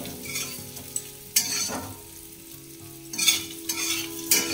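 A metal spatula stirs and scrapes potato chunks, coconut and spice paste around a kadhai as they fry in oil. The sizzle is broken by a few scraping strokes and goes quieter for about a second in the middle.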